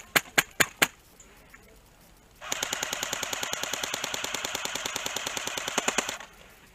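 Airsoft rifle shots: four close, sharp single shots about a quarter second apart in the first second. After a short lull, an airsoft gun fires one long rapid burst of about four seconds, quieter, and stops abruptly.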